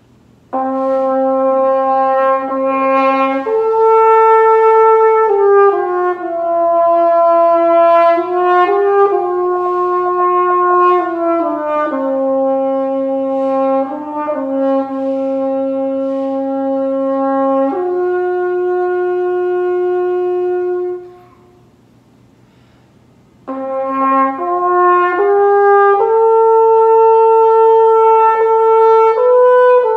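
Small 'baby' French horn played solo: a slow melody of held notes stepping up and down, broken by a pause of about two seconds past the middle before the playing resumes.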